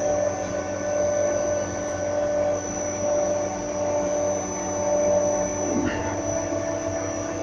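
16K20 lathe with a stepper-motor CNC conversion running: a steady machine hum with several steady whining tones over it, one of them high-pitched.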